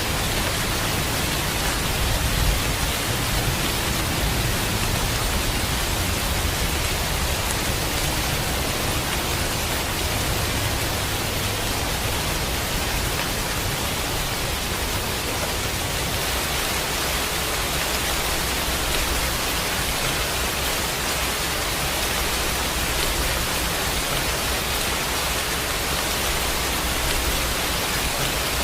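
Steady, heavy rain falling as an even hiss, with a low rumble of thunder dying away over roughly the first ten seconds.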